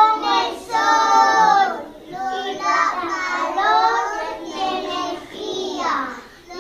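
Young children singing, with some notes held for about a second.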